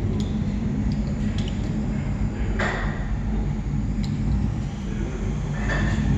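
Steady low rumble with two short rasps, about two and a half seconds in and near the end, from a socket ratchet on a long extension tightening the oil pan bolts.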